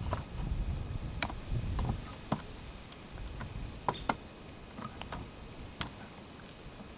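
Handling noise as the camera is moved about: a few scattered sharp clicks and knocks, with a low rumble in the first two seconds.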